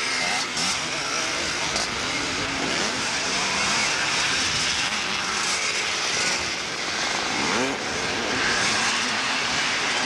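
Several motocross motorcycles racing past on a dirt track, their engines revving up and down in pitch as the riders accelerate through the section.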